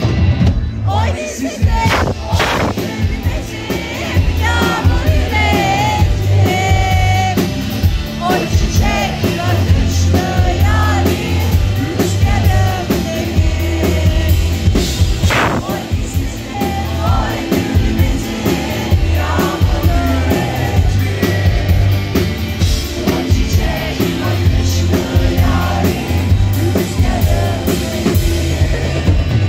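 Live rock-rap song played loud through a club sound system: drum kit and heavy bass under a vocal, with the crowd singing along close to the recording phone.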